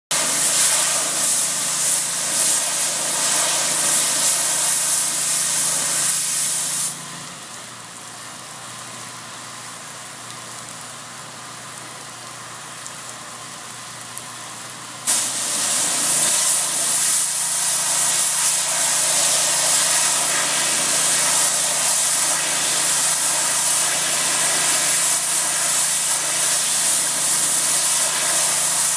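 Steam pressure washer spraying, a loud steady hiss over the machine's low running hum. The spray stops about seven seconds in, leaving only the machine running, then starts again suddenly about eight seconds later.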